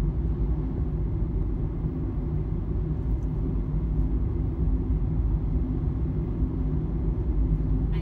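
Car driving on a paved road, heard from inside the cabin: a steady low rumble of road and engine noise.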